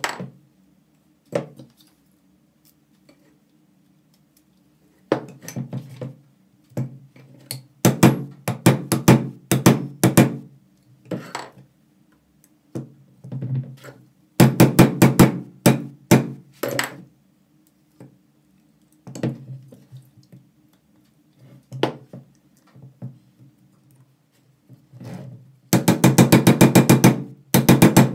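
Hammer tapping on the metal gear head of a 1930s IXION hand breast drill, being knocked apart for restoration. Sharp metallic strikes come in quick runs with pauses of a few seconds between them; the fastest, densest run comes near the end.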